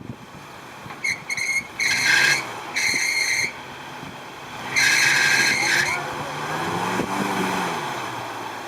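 A four-wheel-drive Jeep's tyres squealing against rock in four short high-pitched bursts, the last and longest about five seconds in. They are followed by the engine revving up and easing off under load on the climb.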